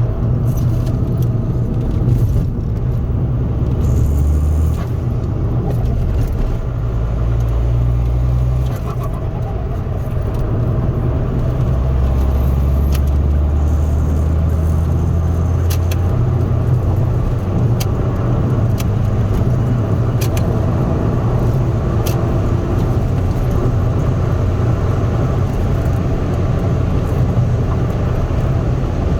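Ford Focus 1.8 TDCi four-cylinder turbodiesel, with an open K&N intake, driving, heard from inside the cabin. Its low engine drone shifts in pitch and strength several times, over steady road noise.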